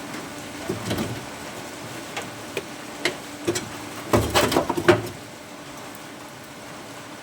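A few scattered sharp clicks and knocks of metalwork, then a dense burst of crackling knocks lasting about a second, over a steady low hum.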